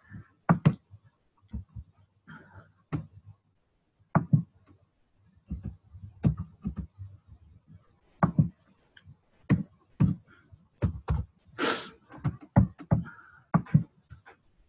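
Irregular clicks and knocks from a computer keyboard and mouse as slide text is edited, with a few short, faint vocal sounds between them.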